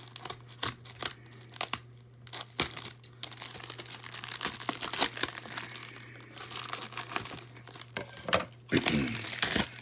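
Mail packaging being torn open and crinkled by hand to get at sports cards: a dense, irregular run of crackles, rips and rustles, busiest near the end, over a steady low hum.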